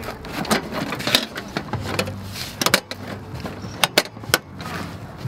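Metal barbecue tools and grill parts being handled and packed into a Weber Go-Anywhere charcoal grill: irregular clattering with sharp metallic clicks and knocks.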